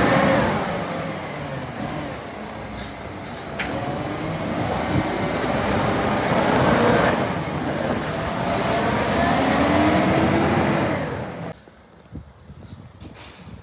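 Side-loader garbage truck's engine and hydraulics running while its automated arm works, the pitch rising and falling several times. The sound cuts off suddenly near the end, leaving a quiet background with a few faint clicks.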